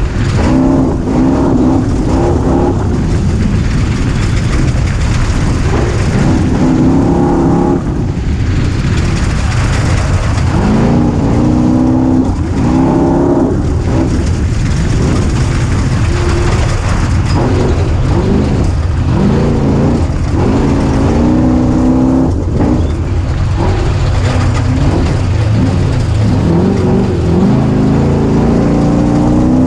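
Small 250 cc engine under way, repeatedly revving up in pitch and dropping back as it runs through the gears or the throttle is rolled on and off, with steady low wind rumble on the microphone.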